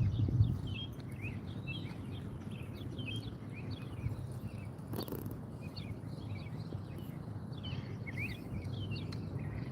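Small birds chirping repeatedly over a steady low outdoor rumble, with a faint click about halfway through.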